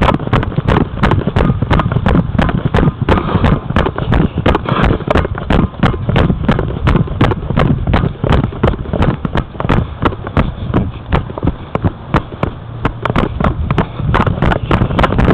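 Wind buffeting the microphone of a head-mounted camera, a loud low rumble. Through it run regular sharp clicks, about two to three a second.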